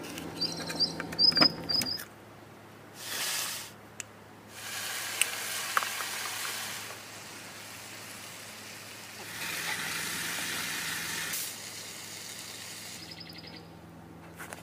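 A knife chopping red capsicum on a wooden cutting board, then separate stretches of hissing from food sizzling in a frying pan on a portable gas stove. Birds chirp briefly at the start and again near the end.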